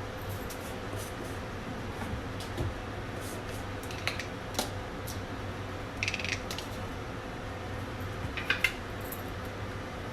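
Scattered light clinks and taps of kitchen utensils or dishes, a few at a time, over a steady hum.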